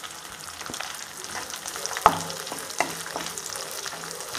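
Sliced onions sizzling in hot sesame oil in a non-stick kadai while a wooden spatula stirs them. The spatula clicks and knocks against the pan, with the sharpest knock about two seconds in.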